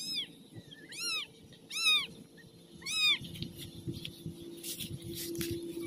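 Kittens mewing: four high-pitched mews, each rising then falling, about a second apart in the first three seconds.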